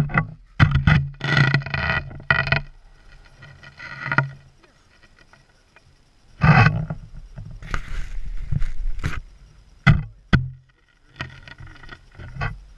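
Skis scraping and hissing over firm snow through turns, coming in bursts with short quiet spells between them.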